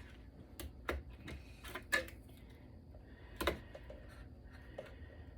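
Server RAM modules with aluminium heat shields being handled and pulled from their slots: a series of sharp, irregular clicks and clacks, the loudest about two seconds in and again about three and a half seconds in.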